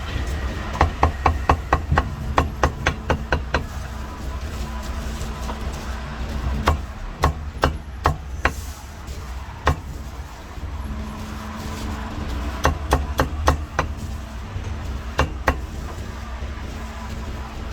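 Cleaver chopping on a chopping block in quick runs of sharp strikes, about four a second, with pauses between runs, over a steady low street hum.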